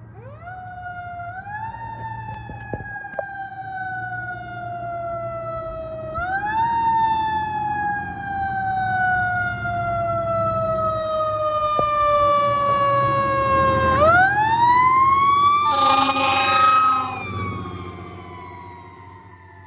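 A 2010 Spartan heavy rescue truck passing on an emergency response. Its siren winds up quickly and then slowly falls in pitch, three times over. About two-thirds of the way through comes a loud horn blast of about a second, and the truck's engine rumbles underneath as it goes by.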